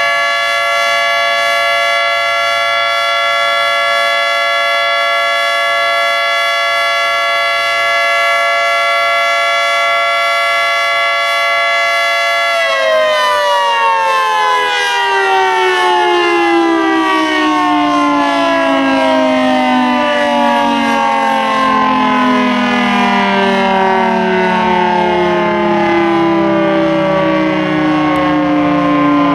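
Federal Signal 3T22 three-tone outdoor warning siren sounding the steady chord of its alert signal. About 13 seconds in, the tone is released and the siren winds down in a long, slowly falling glide as the rotors coast to a stop.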